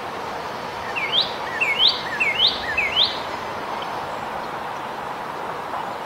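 Male northern cardinal singing: four quick rising slurred whistles in a row, starting about a second in, over a steady background hiss.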